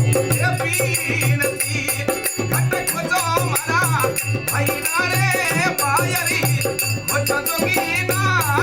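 Devotional folk bhajan music: a wavering melody line over a pulsing drum beat and steady rattling percussion.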